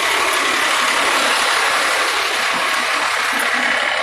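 Fire engine's diesel engine running close by, a loud, steady mechanical rush with no change in pitch.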